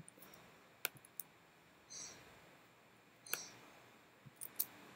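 Faint, light clicks from computer menu navigation, about five separate clicks spread through, with a couple of short higher ticks among them.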